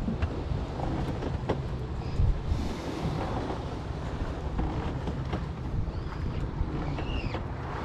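Steady low rumble of a fishing boat's engine running, with wind on the microphone and a few light clicks.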